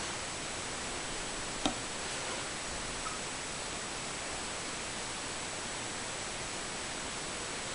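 Steady hiss of the recording's background noise, with one faint click about 1.7 s in.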